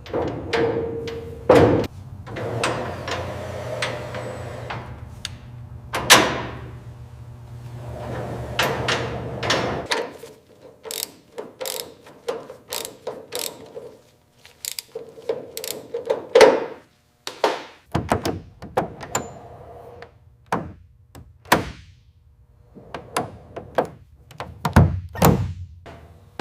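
Workshop handling sounds: a run of sharp clicks, taps and knocks with a few heavier thunks, as parts and hand tools are worked on. A quick patter of clicks comes in the middle, over a low steady hum that drops out for a while.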